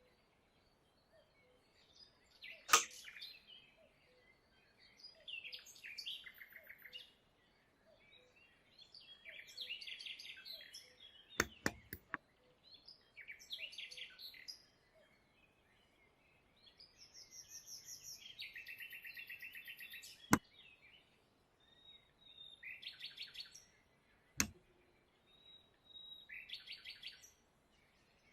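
Birds chirping in short repeated phrases every few seconds, with a few sharp clicks, the loudest about three seconds in and about twenty seconds in.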